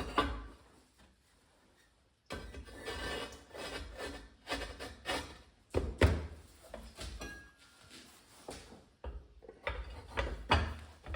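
Rubbing and scraping with several sharp knocks, from hand work on soft insulating firebrick as it is shaped and fitted into a steel forge box. A short quiet spell comes about a second in.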